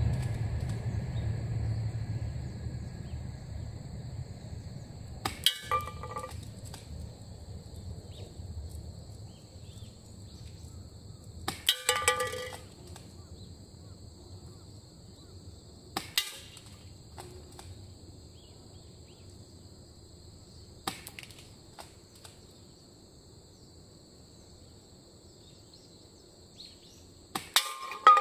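Airsoft BBs from a Tokyo Marui M3 Shorty shotgun striking empty aluminium drink cans: about five sharp hits spaced several seconds apart. Several of them carry a short metallic ring as a can is struck and knocked over.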